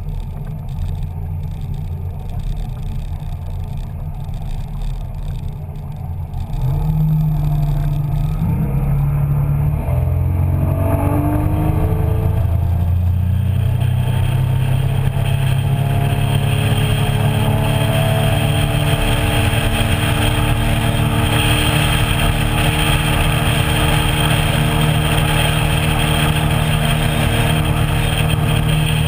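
Small motorboat's engine running at low throttle, then opened up about seven seconds in. Its pitch climbs over the next few seconds and settles into a steady run at speed, with a hiss of water and wind that grows as the boat goes faster.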